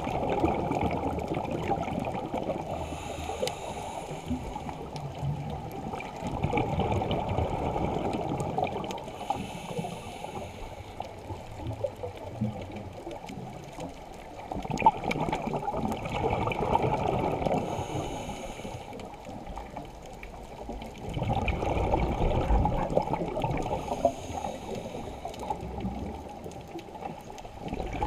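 Scuba diver breathing through a regulator underwater: bursts of exhaled bubbles gurgling every six or seven seconds, with a short hiss of inhalation between them.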